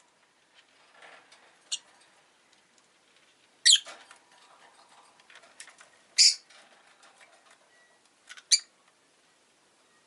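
Rosy-faced lovebird giving short, sharp, high-pitched chirps: one fainter call, then three loud ones about two and a half seconds apart. Faint ticks and rustling come between the calls.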